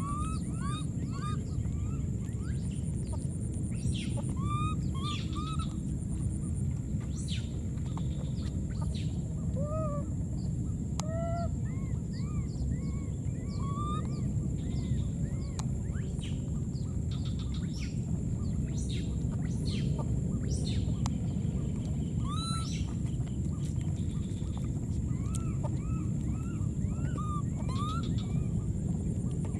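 Short chirping animal calls, repeated many times in quick runs, over a steady low rumbling background. A thin steady high tone runs underneath.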